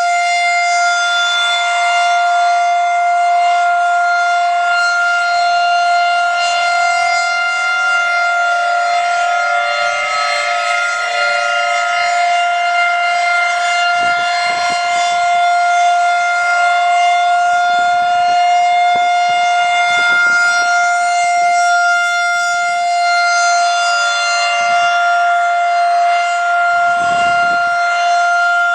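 Federal Signal 2001-130 electromechanical storm siren sounding at full speed: one loud, steady tone held at constant pitch, with a full stack of overtones. In the second half, faint low rumbles come and go beneath it.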